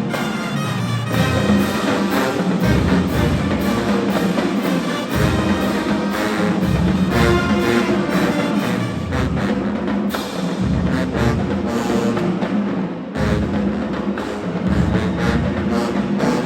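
HBCU marching band playing a loud brass-and-percussion piece, with heavy low brass and drums coming in and out every few seconds.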